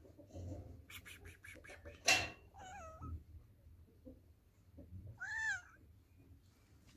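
A tabby-and-white cat meowing: a short meow about two and a half seconds in, then a louder meow that rises and falls about five seconds in. A short, sharp noisy burst just after two seconds is the loudest sound, coming after a quick run of clicks.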